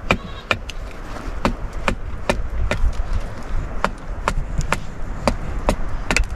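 A large knife chopping repeatedly onto a wooden log, in a steady rhythm of sharp knocks about two to three a second.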